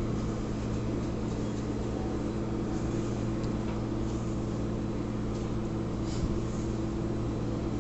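A steady low machine hum, with faint rustling and scraping of a hand mixing and kneading flour dough in a stainless-steel bowl.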